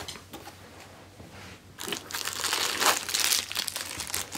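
Plastic wrapping bag crinkling as a wrapped part is handled, starting about two seconds in; before that, only a few faint clicks.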